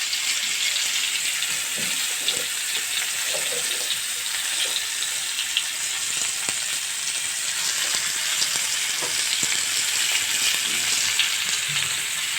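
Potato pieces frying in hot oil, with a steady sizzle and many small crackles from the spattering oil. Occasional light stirring is also heard.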